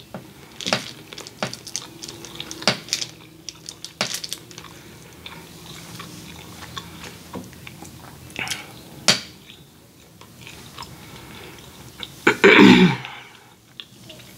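Close-up eating sounds: a metal fork clicking and scraping on a foil-lined food tray, with chewing between the clicks. About twelve and a half seconds in comes a short, loud vocal sound that falls in pitch.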